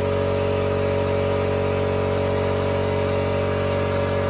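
Steady, even hum of a motor running continuously, with no change in speed or load.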